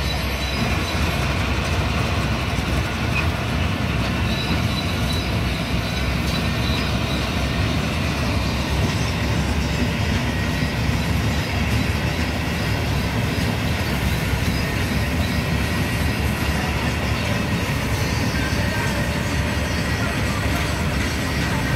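Steady, loud machine noise, like a heavy diesel engine running close by, holding one level throughout with no change.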